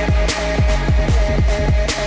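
Electronic background music with a fast, heavy bass beat and regular cymbal crashes.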